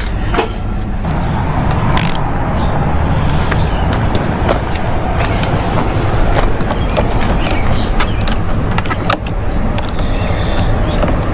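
Scattered metallic clicks and taps of hand tools working a nut, over a steady low rumble.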